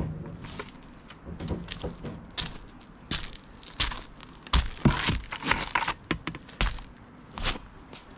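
Footsteps crunching and scuffing on a roof covered with gritty roofing felt, with irregular knocks and rustles as a plastic bucket of roof coating is carried and put down.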